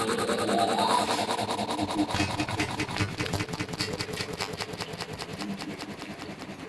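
Synthetic 'planet sound' for the exoplanet Kapteyn b: a rapid buzzing pulse of about ten clicks a second over a low hum, with a tone rising in the first second, slowly fading.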